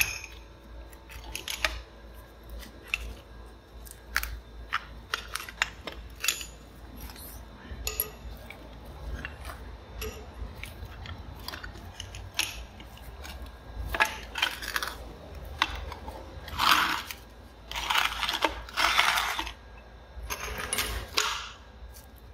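Thin white tiles clinking, clicking and snapping as they are pried off a slab of old mortar backing by hand. A run of sharp chinks goes on throughout, with a few longer gritty scrapes toward the end.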